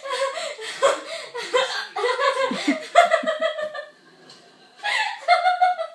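A person laughing in high-pitched bursts, pausing briefly about four seconds in, then laughing again.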